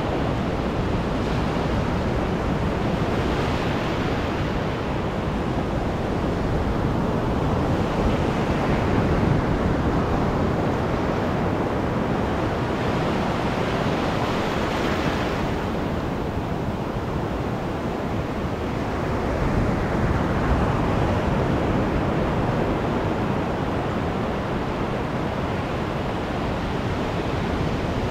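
Ocean surf at the shoreline: waves breaking and foam washing up the sand right at the microphone. It is a continuous rushing noise that swells into a brighter hiss with each surge, about every five or six seconds.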